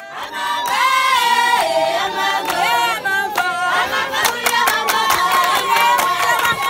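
A Malawian village congregation singing together, several voices holding and sliding through long notes. A quick run of sharp beats joins about four seconds in.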